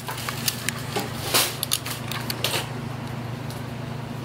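Scattered light clicks and taps, a few sharper ones about one and a half and two and a half seconds in, over a steady low hum; the clicks thin out in the last second or so.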